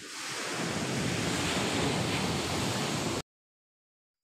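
Steady rushing of ocean surf, with wind on the microphone, growing over the first second, then cut off abruptly about three seconds in.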